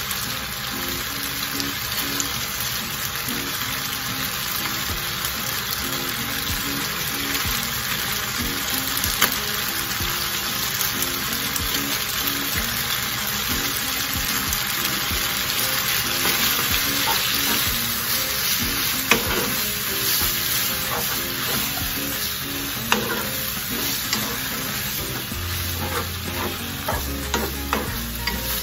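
Squid-ink spaghetti and squid rings sizzling steadily in a frying pan while being stirred and tossed with a wooden spatula, which scrapes and knocks against the pan now and then, more often near the end.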